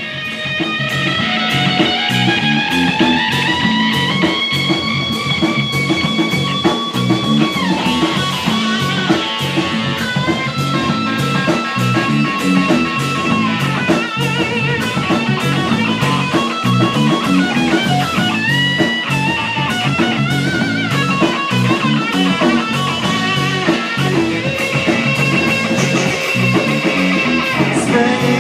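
Rock band playing: an electric guitar lead with long slides and bends over a steady drum beat.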